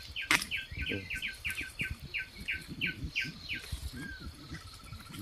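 Forest chirping: a steady run of short falling notes, about three a second, which pauses about four seconds in as a faint, fast, even trill begins. About a third of a second in comes a sharp snap, the loudest sound, with rustling of plants being handled as bamboo shoots are broken off.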